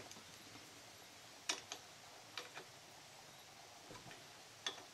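Faint, scattered light metallic clicks, about six over a few seconds, as the metal parts of a Mikuni carburetor are handled while a choke plunger is taken off.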